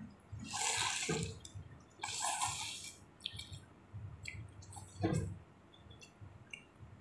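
Slurping hot chicken thukpa noodle soup, two wet slurps in the first few seconds and another about five seconds in, with a few light clicks between them.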